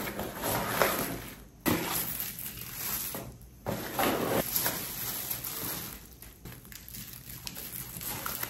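Cardboard box and packaging rustling and crinkling as small artificial potted plants are unpacked, with scattered light handling knocks; busier in the first half, quieter after about six seconds.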